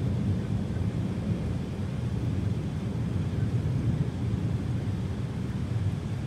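Low, steady rumble of rolling thunder in a rainstorm, with no sharp crack.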